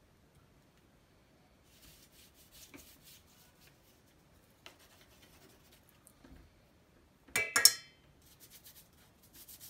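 Paintbrush strokes scratching and rubbing across paper, then a sharp ringing clink of the brush against a glass or ceramic jar a little past seven seconds in, followed by more light brush strokes.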